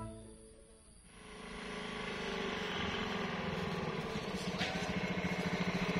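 Motor scooter engine running as it approaches, growing steadily louder from about a second in, with a fast even low pulse. Background music fades out at the very start.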